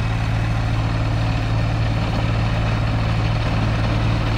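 Kubota KX080 excavator's diesel engine running under load while its hydraulic vibratory plate tamper shakes a wooden trellis post down into the soil: a steady, loud, low drone with a fast buzzing vibration.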